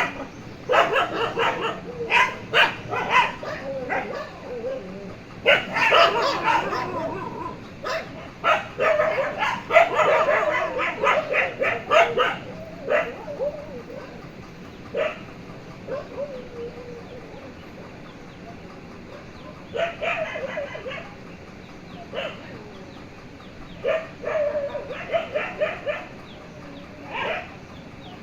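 Dogs barking in rapid runs of barks, in several loud bursts with quieter stretches between them, typical of a dog fight.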